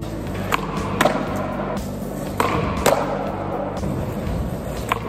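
Skateboard being popped and landed on a concrete floor during a flip trick: about five sharp clacks of the board and wheels, with rolling between them. Background music runs underneath.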